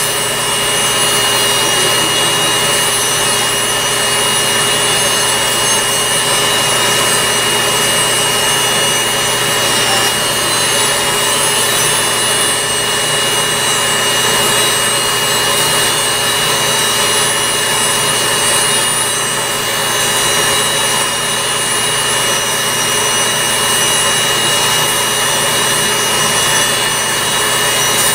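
Handheld electric podiatry nail drill running at a constant speed with a steady high whine, its sanding bur grinding down a toenail.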